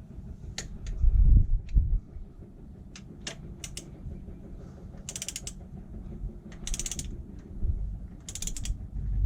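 Socket ratchet wrench on an engine bolt: a few knocks of the tool being set on, then three short bursts of rapid ratcheting as the handle is swung back between turns, running the bolt down.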